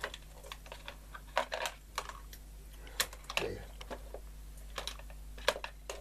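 Hands rummaging across a cluttered workbench, small tools and objects clicking and knocking irregularly as they are picked up and moved, with a faint steady low hum underneath.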